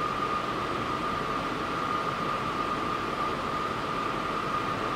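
Steady hiss and whir with a constant high-pitched whine from a parked Montréal Métro MR-63-based vacuum maintenance train standing at the platform with its onboard equipment running.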